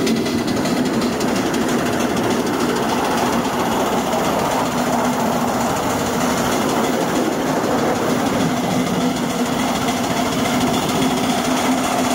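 Live-steam Wren miniature locomotive running steadily under steam: a fast, even beat from its exhaust and motion, with no let-up.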